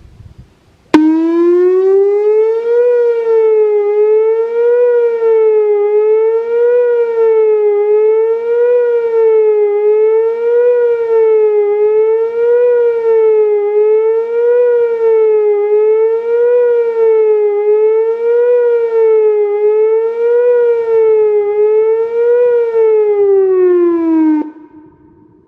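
Whelen WPS-2804 electronic outdoor warning siren sounding a loud up-and-down tone that rises and falls about once every two seconds. It starts suddenly about a second in and ends with a falling glide shortly before the end.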